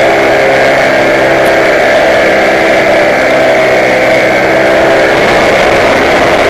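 Small aircraft engine running steadily in flight, heard from on board with air rushing past. About five seconds in, the engine note shifts as its lower tones fade.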